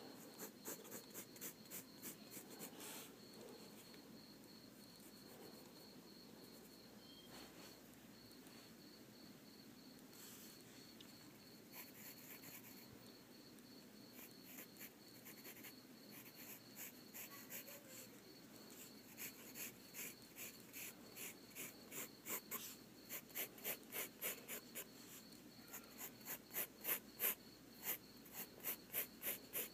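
Drawing strokes on paper: short repeated scratches at about two or three a second, louder and more frequent in the second half, over a faint steady high-pitched tone.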